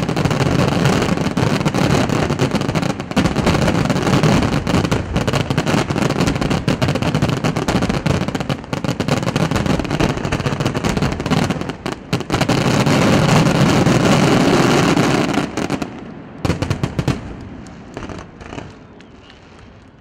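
Barrage of aerial firework shells bursting in quick succession, a dense, continuous run of bangs and crackle. After about sixteen seconds it thins out to a few scattered bangs and grows quieter.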